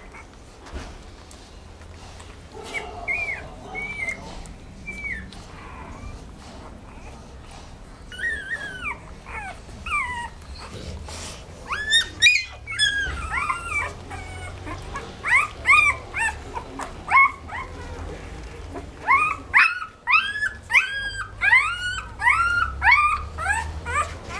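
Dog whining, with many short, high whimpers and yips that come thicker and faster in the second half.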